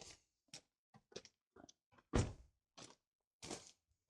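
A string of short, soft clicks and rustles of handling, with a louder knock about two seconds in.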